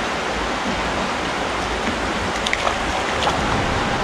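Shallow creek water running steadily over rocks in a riffle, with a few faint clicks about two and a half to three seconds in.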